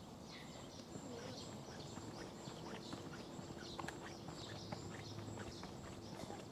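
Steady outdoor background noise with faint, scattered bird chirps and a few light ticks.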